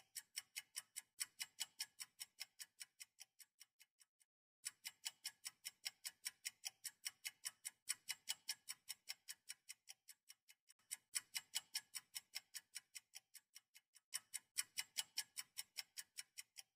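Clock ticking sound effect: fast, sharp, high-pitched ticks, about four or five a second. The ticking comes in looped runs that start loud and fade away, breaking off briefly about four seconds in and starting again loud several times.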